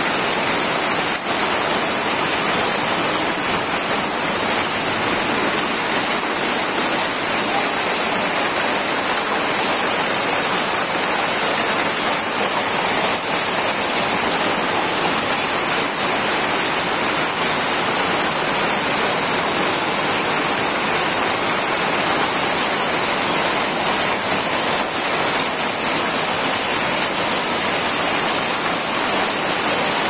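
Heavy rain pouring down on corrugated tin roofs and a waterlogged yard, with runoff streaming off the roof edges: a loud, steady hiss without a break.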